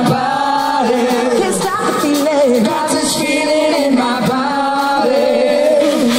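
Live band music: a female lead singer holds long, bending notes into a microphone over electric guitar, bass, keyboard and drums.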